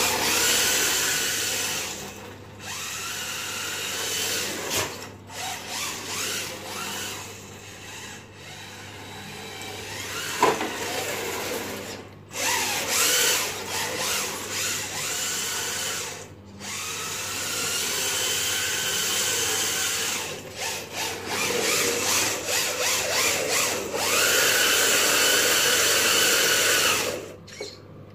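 FTX Banzai 4WD drift car's brushed electric motor and geared drivetrain whining as the car is driven, the pitch sweeping up and down with the throttle. It stops abruptly several times and starts again.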